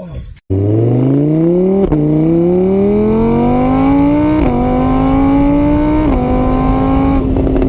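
A motor vehicle's engine accelerating through the gears: its pitch climbs, drops back at each of three gear changes, then holds steady near the end.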